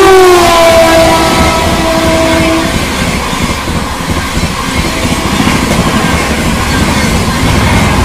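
Express train passing at speed behind an electric locomotive: the locomotive's horn is sounding and drops in pitch as it goes by, then cuts off about three seconds in. After that comes the steady rush and rumble of the coaches passing.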